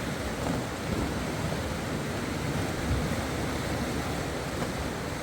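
Steady rushing of river water, an even noise with no distinct events.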